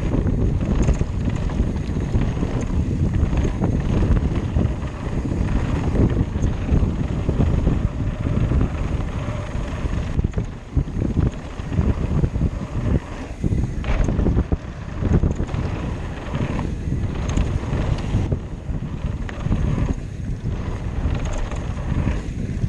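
Wind buffeting the action camera's microphone over the rumble of a Trek Slash 9.8 mountain bike's tyres on a dry, loose dirt trail during a fast descent, with frequent short knocks and rattles as it hits bumps.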